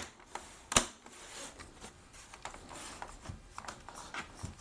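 Plastic back cover of an Asus ProArt PA246Q monitor pressed onto its housing, clipping on: one sharp snap just under a second in, then lighter clicks and plastic rubbing as the hands press along the edges.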